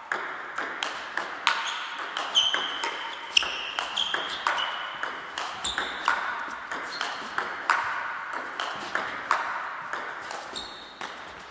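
Table tennis rally: the ball clicking off the bats and bouncing on the table, about two to three hits a second, each hit with a short ringing ping.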